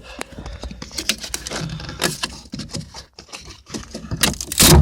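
Irregular clicks, scrapes and plastic crackling as the stock front door speaker is torn out of its riveted mount, with a louder knock near the end.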